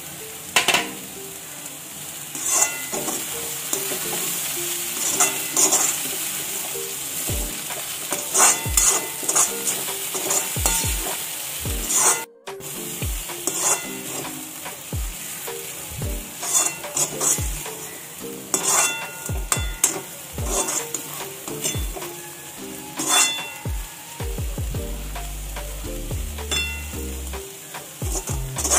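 A steel slotted spoon scraping and clinking against a metal kadai as soaked puffed rice is stir-fried, over a steady sizzle from the hot pan. The sound cuts out briefly about twelve seconds in.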